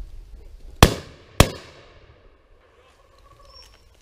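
Two shots from a Laurona over-and-under shotgun, fired about half a second apart at a driven pheasant, each with a short echoing tail.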